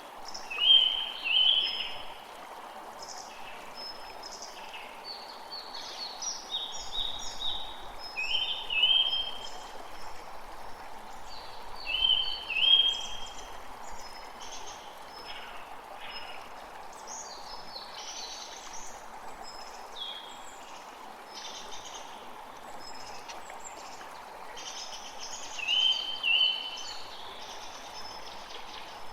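Steady hiss of rain, with birds calling over it. The calls are short and high-pitched, and the loudest come in pairs, a few times.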